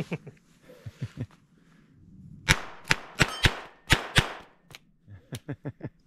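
Revolver fired six times in quick succession by fanning the hammer, the shots about a third of a second apart with ringing after each. Fainter clicks come before and after the shots.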